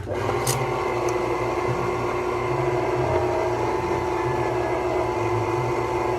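Electric can opener starting with a click, then its motor humming steadily as it cuts around the lid of a can.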